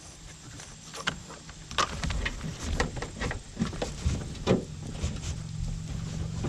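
Hands working wires through the rubber wiring boot between a car door and the body: irregular clicks, taps and rubbing of wire against rubber and plastic.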